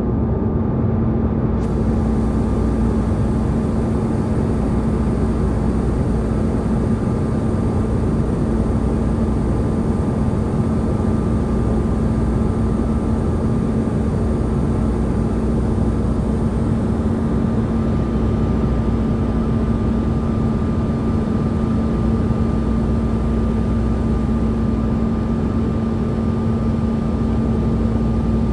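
Jet airliner cabin noise in flight: a steady rush of engine and air noise with a constant low hum and a fainter high whine.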